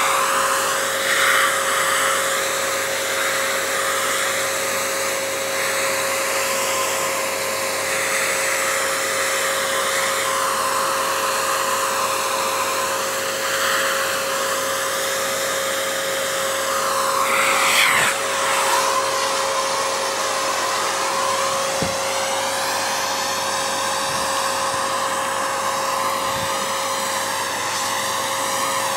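Vacuum cleaner running steadily with a constant whine, its narrow nozzle drawn over a cat's fur; the rushing air keeps shifting in pitch as the nozzle is pressed into and lifted off the coat, with a brief louder rush about eighteen seconds in.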